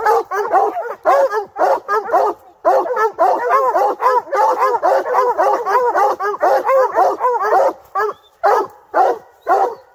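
Hound barking in a fast, steady run of short barks, about four or five a second, while looking up into a tree: the bark of a dog that has treed its quarry. The barking breaks off briefly twice.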